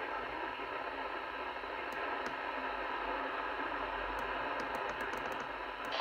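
Steady static hiss from a Midland NOAA weather radio's small speaker, the receiver tuned to the weather channel with no voice yet. A few faint clicks of its buttons being pressed come about two seconds in and near the end.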